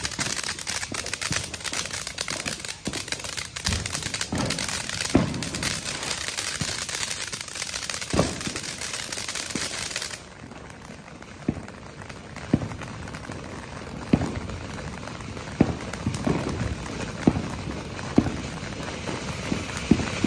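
Live Laugh Love consumer fountain firework burning: a dense hissing spray shot through with crackle and sharper pops. About halfway through the hiss drops off suddenly, and scattered crackling pops carry on, coming quicker near the end.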